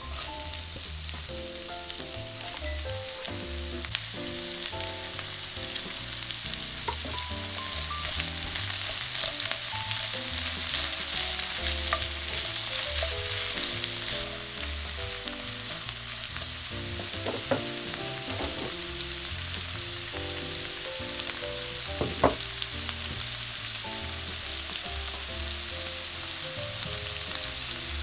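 Vegetables and seafood (onion, cabbage, zucchini, carrot, squid, shrimp) sizzling in hot oil as they are stir-fried in a nonstick frying pan over high heat. A couple of sharp knocks of the spatula against the pan come in the second half.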